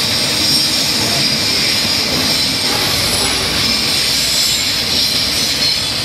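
A long freight train of covered hopper wagons rolling steadily past, a continuous rumble of wheels on rail with a high, steady wheel squeal over it.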